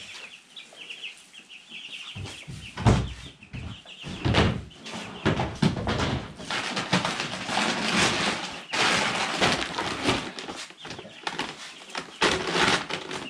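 Two-week-old meat chicks peeping rapidly. Then come a few knocks as the metal trough feeder is handled and set down, and a long stretch of rustling and scraping as feed is scooped out of a paper feed bag.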